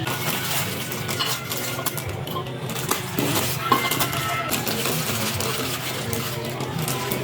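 Metal tools and parts clinking and knocking a few times over a steady low hum, as in hands-on repair work.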